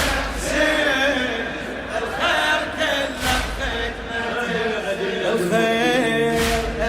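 Male voices chanting a Shia mourning elegy (latmiya) in chorus, with a deep thump roughly every three seconds.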